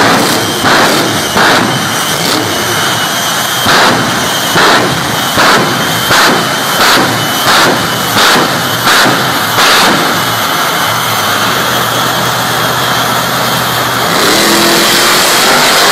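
Loud vehicle engines at a drag strip, with a regular series of short bursts about every three quarters of a second for the first ten seconds, then a steadier, louder engine sound from about fourteen seconds in.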